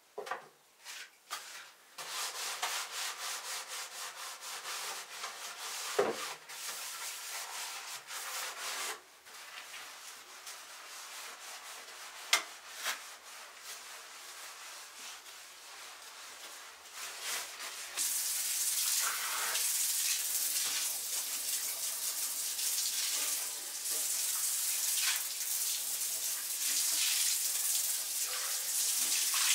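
Continuous rubbing, scraping sound, with a couple of sharp knocks; it grows louder and brighter about two-thirds of the way through.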